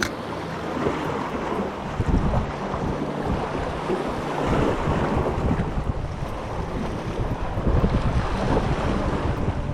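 Wind buffeting the microphone in gusts over the wash of sea waves on the shore.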